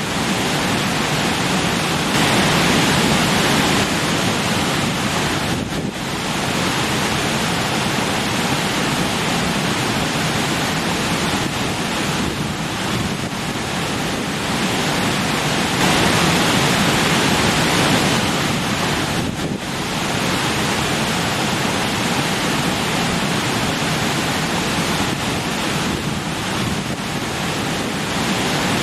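Rushing stream water splashing over rocks: a steady, dense rush. It swells a little now and then and dips briefly twice, about six and twenty seconds in.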